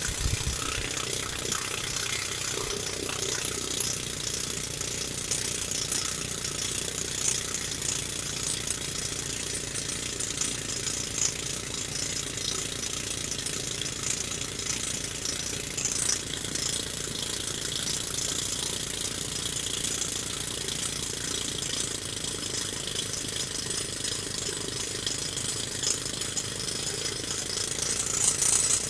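Percussive rock drill hammering steadily as it bores a hole into rock. This is the deep hole drilled for an expansive, soundless rock-cracking agent.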